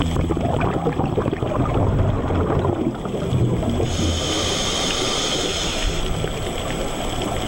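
Underwater ambient noise picked up by a dive camera: a rough, even rush of water noise with no steady tones. About four seconds in, a brighter hiss comes in for roughly two seconds.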